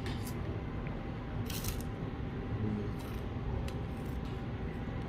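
A few short clicks and scrapes of utensils and dishes as people eat, over a steady low background hum.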